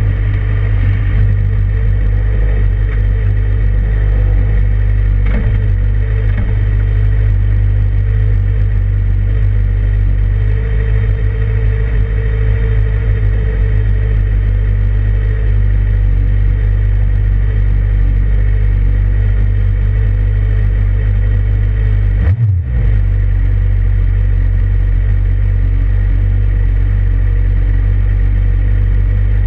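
Suzuki GSX-R motorcycle's inline-four engine running steadily, with one brief dip in the sound about three-quarters of the way through. The owner calls it a bad motor.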